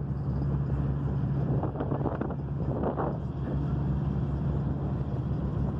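A vehicle engine droning steadily, with wind buffeting the microphone.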